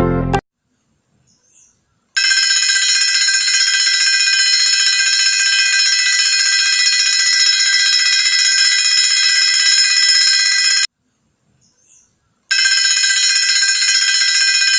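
Homemade door alarm going off with a loud, steady, high-pitched electronic ring, sounding for about nine seconds, stopping, then starting again about a second and a half later. A faint brief sound comes just before each ring.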